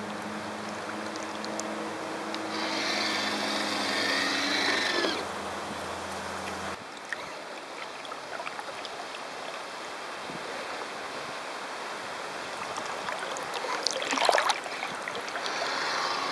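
Water rushing and splashing along the hull of a 900 mm radio-controlled sailboat under sail, heard close up from its deck. A steady low hum stops abruptly about seven seconds in, and a sharp splash comes about fourteen seconds in.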